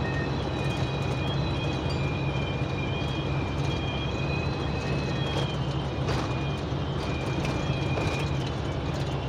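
Inside a truck cab at highway speed: a steady engine and road drone with thin, high wind whistles from gaps in the cab that come and go. There are also a few light rattles.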